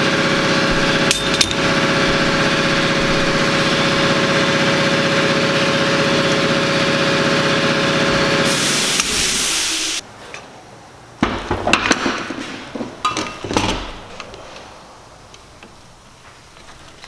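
A steady machine hum that stops about eight and a half seconds in with a brief hiss, followed by scattered clinks and knocks of metal parts, coil springs and a strut, being handled on a workbench.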